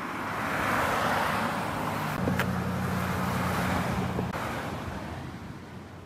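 A motor vehicle passing on the road. Its tyre and engine noise swells over the first second, a steady engine hum holds for about two seconds, and then it fades away. A single sharp click comes about two and a half seconds in.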